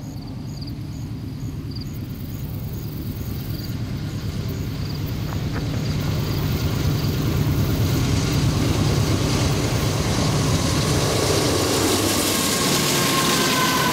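Diesel locomotives of a fast freight train approaching: a low engine rumble grows steadily louder. Near the end the lead locomotive passes close by, wheel and rail noise rises and a whining tone drops in pitch as it goes by.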